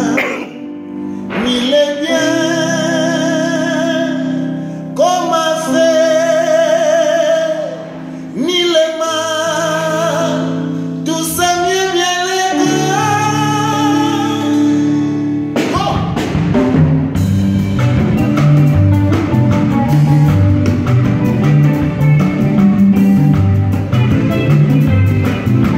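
Live band music: a man sings long held notes with vibrato over sustained chords. About 16 seconds in, the drum kit and the full band come in with a steady, faster beat.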